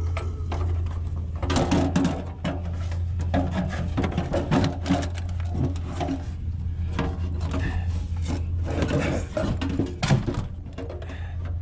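Curbside scrap being pulled out and handled: irregular knocks, clatters and scraping as pieces shift and fall against each other, over a steady low hum.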